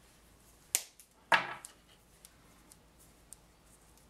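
Close handling noise from hands working a wire armature and a roll of black electrical tape: a sharp click, then a louder short scrape about half a second later, then a few faint ticks.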